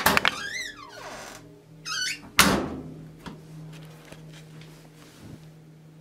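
Two loud bangs, one at the start and a louder one about two and a half seconds in, with a high wavering squeal between them. After them a steady low hum carries on. The bangs come from the laundry machines, which the person taking them for paranormal takes for the washing machine.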